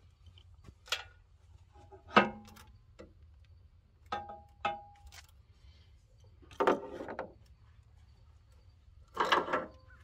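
Metal clicks and clanks of hydraulic hose fittings and quick-couplers being handled and connected on a compact tractor's backhoe lines: about six separate knocks, some with a short metallic ring, the loudest about two seconds in, and brief rattles near the end.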